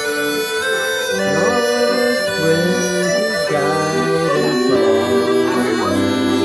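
Uilleann pipes playing a tune over their steady drones, with a harmonica playing along.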